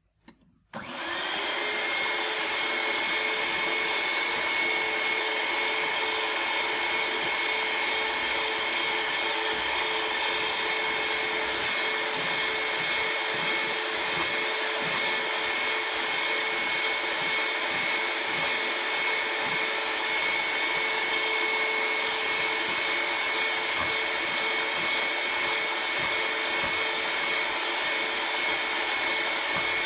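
Electric hand mixer switching on less than a second in and then running steadily with a constant whine, its beaters whipping egg batter in a glass bowl.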